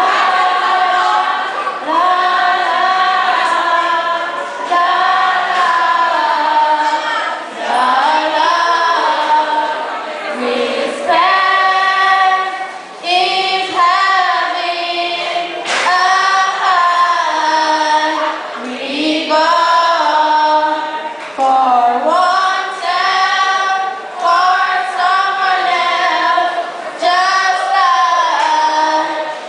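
A choir of teenage students singing together without instruments, in long held phrases with short breaths between them.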